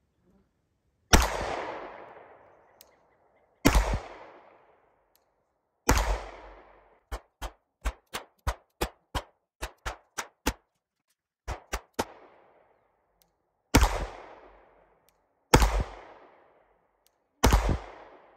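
Glock 19 9mm pistol firing at a target: single shots a couple of seconds apart, each with a long echoing tail, and in the middle a quicker string of about a dozen shorter, sharper cracks, around three a second.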